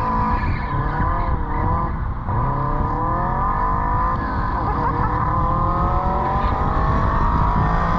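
Honda B18B1 four-cylinder engine of a rear-mid-engine EG Civic hatch revving hard under load. Its pitch falls and climbs a few times, drops sharply about two seconds in, then rises steadily through the second half.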